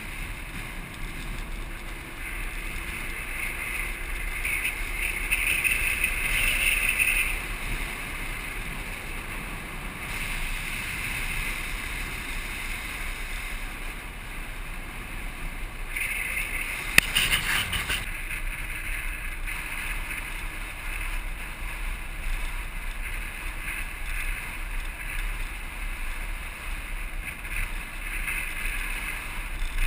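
Land yacht rolling fast across a hard dry lakebed: a steady rush of wind and wheel noise that swells about five to seven seconds in and again around sixteen to eighteen seconds, with one sharp click about seventeen seconds in.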